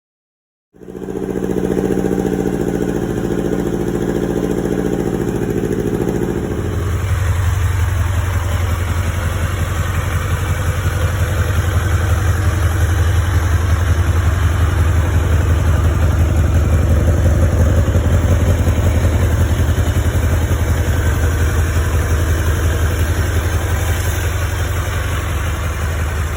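1992 Kawasaki Ninja ZX-7's inline-four engine running with a higher note at first, then dropping about six seconds in to a lower, steady idle.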